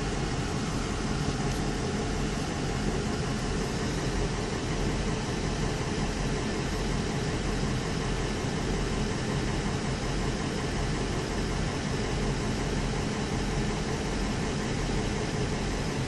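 An engine running steadily with a constant low hum and an even hiss of noise, with no revving or changes in pitch.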